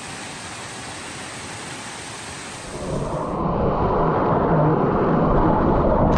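Steady rush of a waterfall, an even hiss of falling water. About three seconds in it cuts to a louder, deeper rush.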